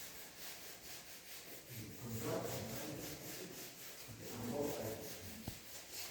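Rhythmic hand rubbing or sanding, a quick run of short scraping strokes at about three a second.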